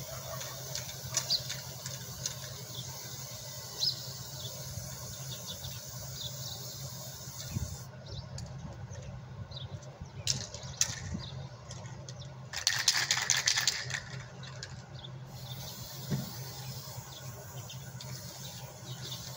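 Aerosol spray can hissing, a couple of short spurts and then one longer spray of about a second and a half, over a steady low hum.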